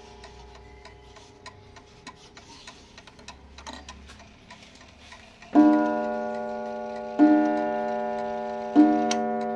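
Pendulum clock ticking steadily, then its hammer striking the coiled wire gong three times about a second and a half apart, each blow ringing on and slowly fading.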